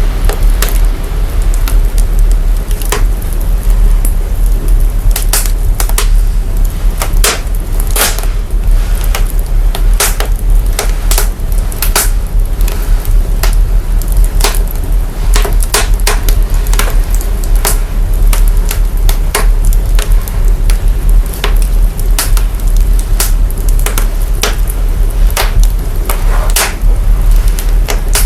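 Fire crackling with many irregular sharp pops, over a strong, steady deep sub-bass rumble. The fire recording has been heavily processed to boost the very low end.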